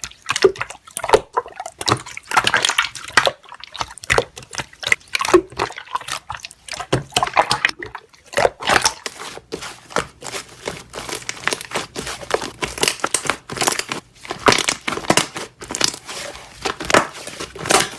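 Slime being squeezed and pressed, with rapid, irregular popping and crackling of trapped air bubbles.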